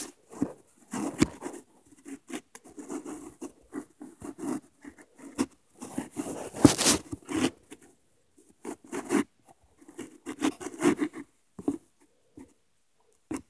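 Irregular bursts of scratching and rustling with a few sharp clicks, coming in quick clusters with short gaps between them. The loudest scrape is about two thirds of the way through.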